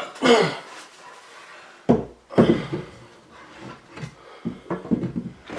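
A man grunting and breathing hard with effort while he hoists a heavy plywood speaker cabinet. Two sharp thumps come about two seconds in.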